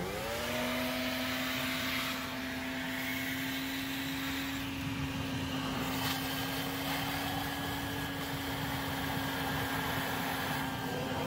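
Shop vac switched on, its motor spinning up to a steady whine and running, sucking the leftover water out of a boat's bilge.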